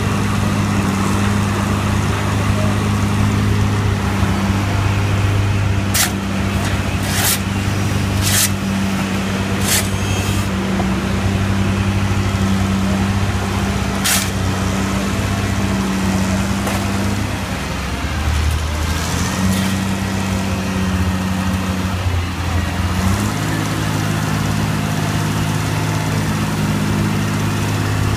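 Engine of a truck-mounted auger drill rig running steadily under load while it bores a foundation pier hole, its tone dipping and shifting for a few seconds past the middle. Several sharp clacks of a steel shovel striking the ground while soil is cleared from the bore.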